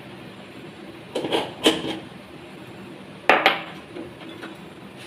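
Crockery clattering as plates are handled and set down on a kitchen counter: a quick run of knocks about a second in, then two sharp knocks a little after three seconds, over a steady low hum.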